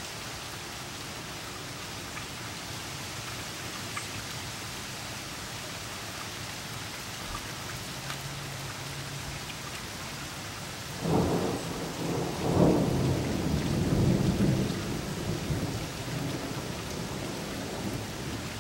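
Steady rain falling, with a few scattered drips. About eleven seconds in, a roll of thunder breaks in suddenly, rumbles for several seconds as the loudest sound, then fades away.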